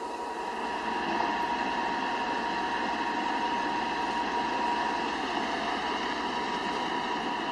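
Steady machine noise: an even hiss with a thin, constant whine held at one pitch, unchanging throughout.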